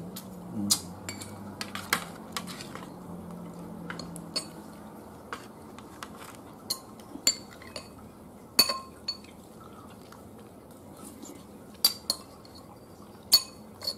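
Metal spoons clinking and scraping against ceramic plates and bowls as food is served and eaten: irregular sharp clinks, some ringing briefly, the loudest a little past halfway and near the end.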